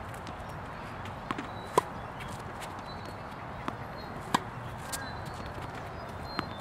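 Tennis balls hit with rackets and bouncing on a hard court during a backhand rally: several sharp pops, the loudest about two seconds in and just past four seconds in, over a steady outdoor hiss.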